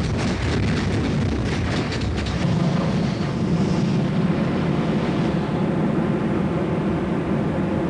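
Several flamethrowers of a flame-organ sound installation firing together. A quick run of sharp pops in the first two seconds gives way, about two and a half seconds in, to a steady, continuous rush of flame with a heavy low rumble.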